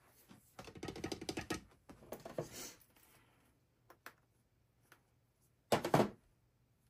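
Painting tools worked on a palette while mixing paint: a run of quick clicking scrapes lasting about a second, a shorter run after it, then a few single clicks and a louder clatter near the end.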